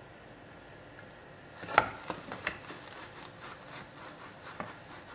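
Soldering work on a stripboard: one sharp knock about two seconds in, then a scatter of lighter taps and rubbing as the soldering iron and hands work the board.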